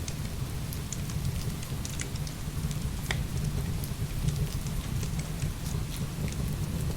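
Heavy rain falling steadily with a deep, constant rumble, and scattered sharp crackles and pops of burning firewood.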